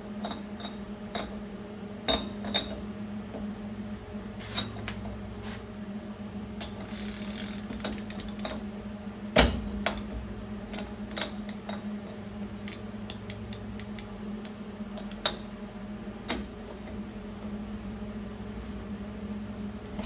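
Spindle nut socket and wrench working a stuck locknut on a Dana 30 front hub, with scattered metal clicks and creaks and one loud knock about nine seconds in. The nut is stiff and hard to break loose.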